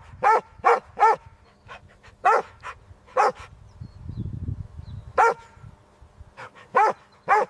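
A small dog yapping: about ten short, high barks, the first few in a quick run and the rest spaced more irregularly.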